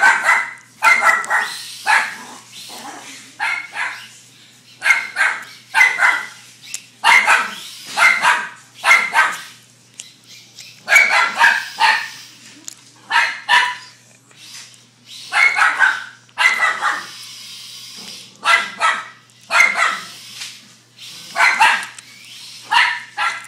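Dog barking over and over in short, sharp barks, about thirty of them, often in pairs or threes with brief pauses between. This is alarm barking at a micro RC car driven toward it.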